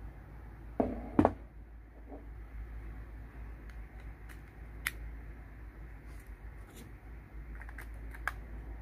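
USB plugs and a plastic USB tester being handled and plugged in: a pair of loud clicks about a second in, then scattered light clicks and taps, over a low steady hum.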